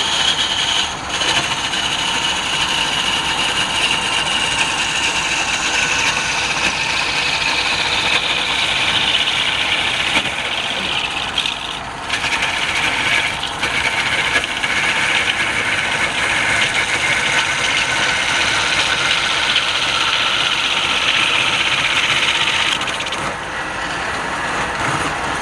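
Wood lathe running while a turning tool cuts the spinning wood: a continuous scraping hiss whose pitch drifts slowly up and down, broken briefly a few times.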